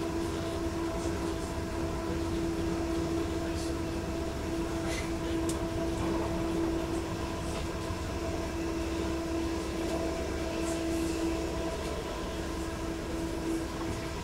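DB class 422 S-Bahn electric multiple unit, with Bombardier MITRAC IGBT traction inverters, heard on board: a steady hum over a low rumble, with a few faint clicks.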